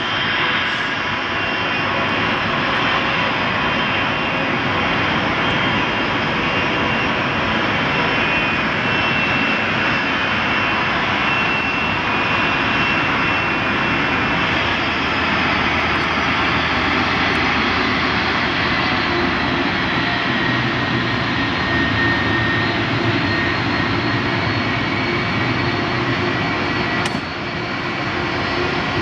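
Twin turbofan engines of a Boeing 757-300 running at taxi thrust: a steady rumble with a high whine on top that drifts slightly lower about two-thirds of the way through.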